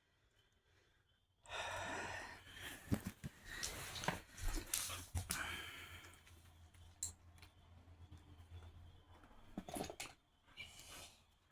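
Rustling with scattered clicks and knocks as fidget toys are rummaged through in a box, loudest in the first few seconds after a short quiet start.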